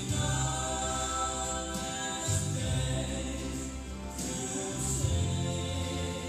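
A choir singing a hymn, sacred choral music with held, sustained notes.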